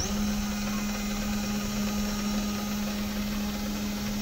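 Stepper motors of a Sainsmart Genmitsu 4040 Pro CNC router driving the gantry toward its home position at constant speed, a steady low hum with motion noise.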